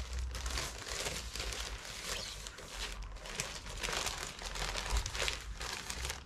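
Packaging bag crinkling and rustling in irregular handfuls as it is handled and opened to get an item out.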